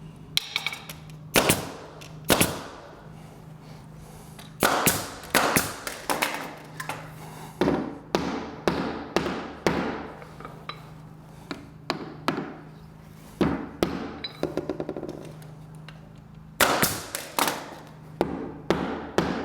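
Baseboard trim being knocked into place with a hammer: irregular sharp wooden knocks, some single and some in quick runs of several, with pauses between.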